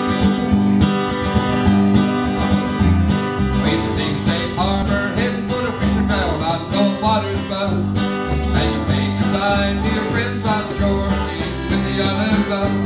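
Live country-folk band music: acoustic guitar strumming over electric bass, with a button accordion.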